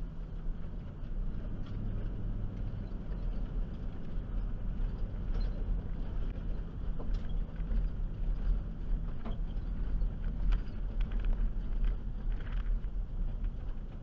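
Ford E150 van running on a rough dirt road: a steady low engine and road rumble, with occasional clicks and rattles.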